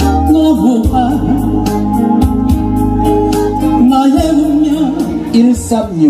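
Music with electronic-organ chords, heavy bass and a steady beat, and a voice singing over it with a wavering vibrato.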